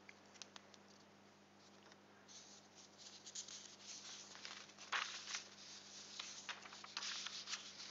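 Faint, irregular clicking and rustling close to the microphone, sparse at first and busier from about two seconds in, over a low steady hum.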